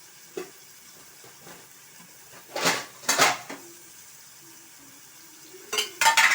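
A metal spoon scraping and stirring through chopped onions frying in oil in a cooking pot: two strokes about two and a half seconds in, then more near the end.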